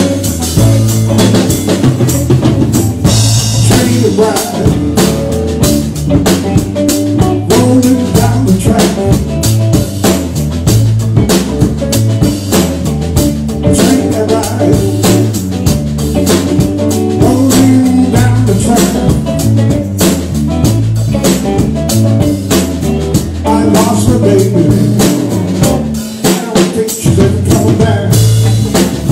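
Live blues band playing: electric guitar, bass line and drum kit keeping a steady beat with rimshots.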